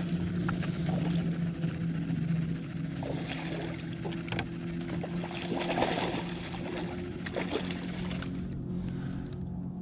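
Hooked redfish thrashing and splashing at the water's surface beside the boat as it is played in, busiest in the middle of the stretch. A steady low motor hum runs underneath.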